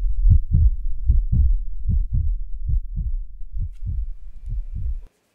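Heartbeat sound effect: low thumps in lub-dub pairs, roughly one pair a second, growing softer and then cutting off abruptly about five seconds in.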